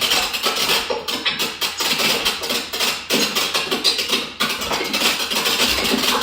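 Rapid, irregular clattering and knocking with a scraping hiss, several knocks a second, starting abruptly.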